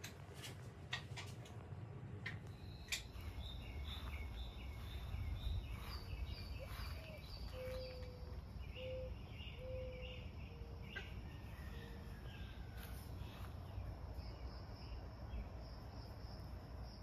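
Outdoor yard ambience: birds chirping and calling, with insects, over a low rumble. A few sharp clicks sound in the first few seconds.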